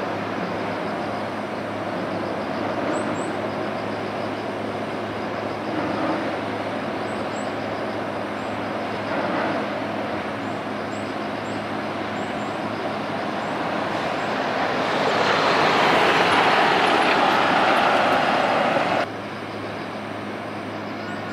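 Steady outdoor rumble of passing vehicle traffic. It swells louder for a few seconds toward the end, then drops away suddenly about nineteen seconds in.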